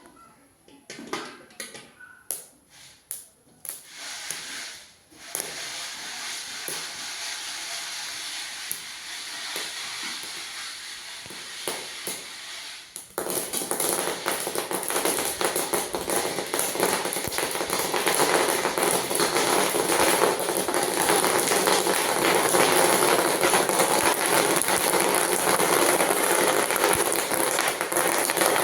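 Popcorn cooking in a pan. It opens with a few scattered taps and a steady sizzling hiss. About halfway through it jumps to a louder, dense crackle of kernels popping in quick succession.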